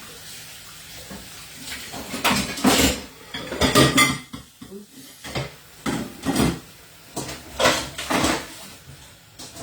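Pots and metal utensils clattering and clinking in a string of separate knocks, starting about two seconds in.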